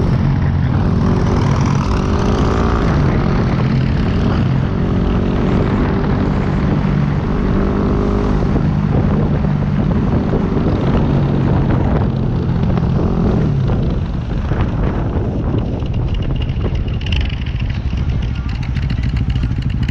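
Motorcycle engines running at road speed under heavy wind rush on the microphone. The engine note comes in repeated pulses, then gets a little quieter about two-thirds of the way through.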